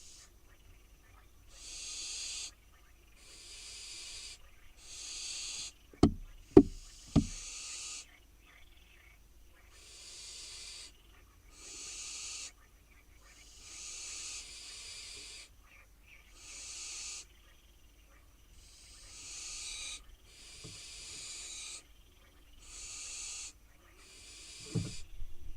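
Barn owl fledglings giving their harsh hissing begging calls, long rasping hisses repeated every second or two while they wait to be fed. Three sharp knocks about six seconds in, and a smaller knock near the end.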